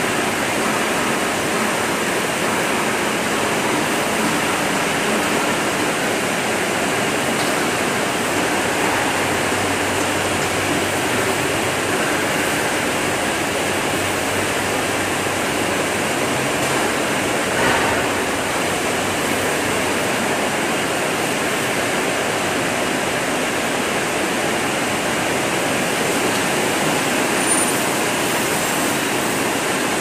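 Steady rushing of water spraying and pumping inside a running industrial basket washing machine, with one brief knock a little past halfway.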